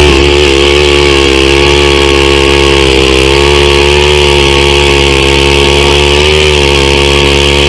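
Gas-powered ice auger drilling into lake ice. The engine runs loud and steady at high speed under load, its pitch wavering slightly as the bit cuts.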